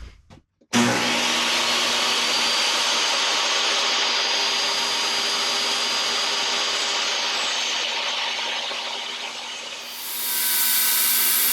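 Small table saw cutting through an edge-glued pine board, a steady whine of motor and blade starting suddenly just after the start. It eases off toward the end and changes to a brighter, higher sound about ten seconds in.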